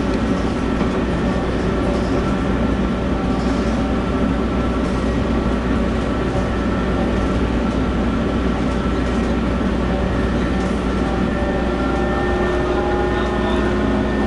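Matra VAL 256 rubber-tyred metro train running, its traction drive giving a whine of several steady tones over a low rumble, with some tones shifting pitch near the end. The uploader takes the whine for an abnormal inverter (變頻) noise.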